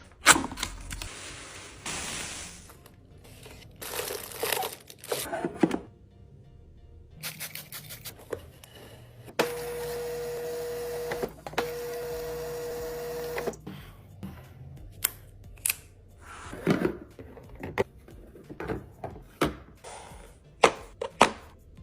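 Packaged items being handled and placed into a mini fridge: plastic packaging rustling and crinkling, with sharp clicks and taps as containers are set down. About halfway through, a steady hum sounds twice, each time for about two seconds.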